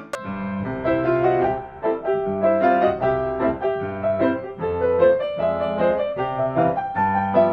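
Background piano music: a melody of short notes over low chords.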